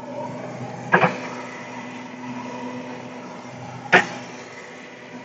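Oxy-fuel brazing torch flame hissing over a steady hum, broken by two sharp clicks about three seconds apart.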